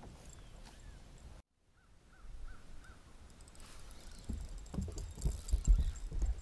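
Irregular low thumps of steps on a bass boat's deck as the dog and the angler move about, loudest in the second half. Four short, evenly spaced chirps of a bird come about two seconds in.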